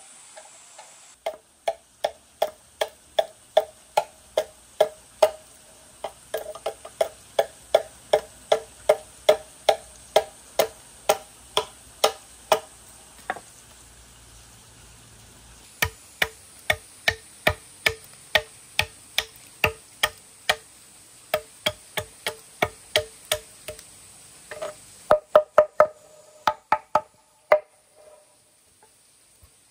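A machete chopping into a wooden log, sharp woody strikes about two a second, each ringing briefly. The strikes pause for about two seconds midway, then go on, ending in a quicker flurry of blows.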